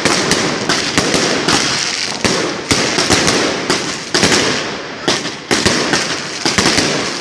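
Daytime fireworks battery (batteria) going off. A rapid, irregular string of sharp bangs, several a second, over continuous crackling, while the shells throw coloured smoke overhead.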